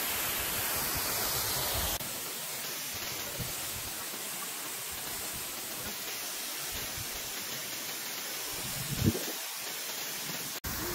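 Steady rush of falling water, an even hiss with no tone in it. It steps down in level about two seconds in, with a low thump near the end and a brief dropout just before it ends.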